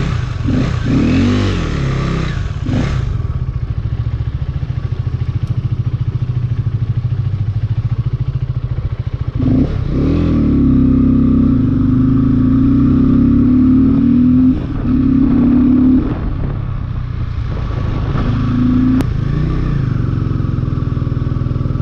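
KTM RC sport bike's single-cylinder engine pulling away and riding: revs rise and fall in the first few seconds, then hold a steady, louder pitch from about ten seconds in, dipping briefly twice.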